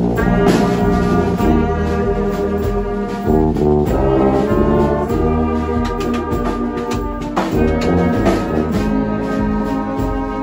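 Brass band playing loudly at close range, dominated by tubas, in held chords that change every few seconds.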